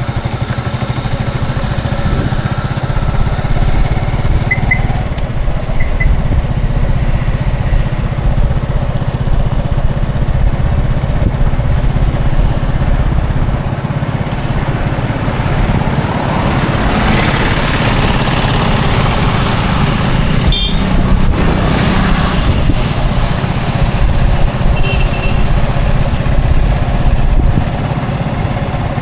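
Busy road traffic: a steady low rumble of engines, with one vehicle passing close and loud about halfway through and a few short horn beeps.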